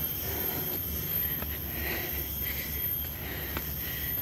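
Forest insects buzzing in a steady, very high-pitched drone, over a low rumble of wind and handling on the microphone, with a few faint footfalls on the stone steps.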